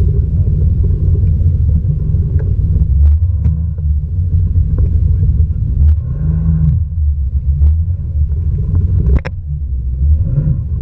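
Wind buffeting an action camera's microphone, a loud, unsteady low rumble, with a few sharp knocks, the sharpest about nine seconds in.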